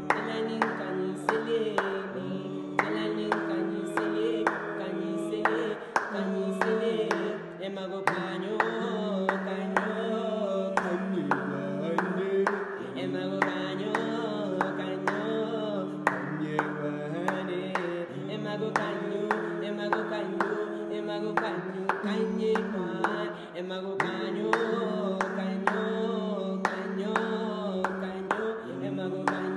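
A small group of male voices singing a cappella in close harmony, holding long chords that shift every second or two, over steady hand claps on the beat, about two a second.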